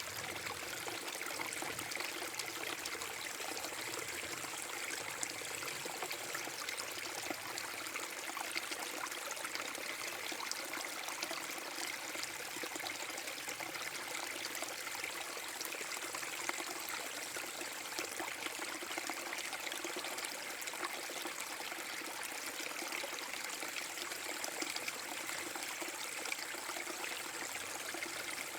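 Small forest brook waterfall: water splashing and trickling over rocks in a steady, even rush.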